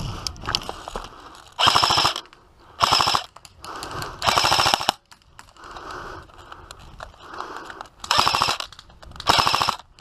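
Airsoft rifle firing full-auto in five short bursts, each a rapid run of clicks lasting under a second, with quiet gaps between them.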